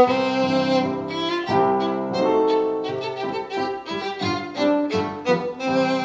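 Instrumental background music, a violin playing a melody of short notes that change quickly.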